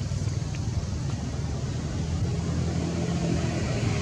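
Steady low engine rumble of motor traffic, with a faint hum coming in about halfway through.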